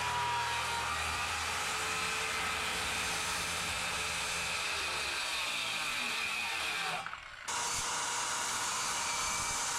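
Power tool running steadily, dropping out abruptly for about half a second about seven seconds in.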